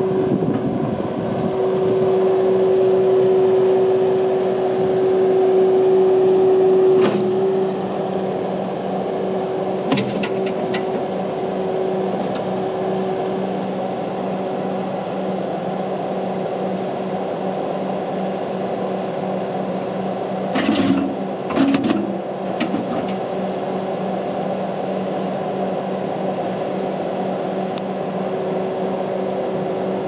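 Kubota SSV65 skid steer's diesel engine running steadily with a strong whine; about a quarter of the way through the loudness drops and the whine falls to a lower pitch. A couple of short surges come a little over two-thirds of the way in.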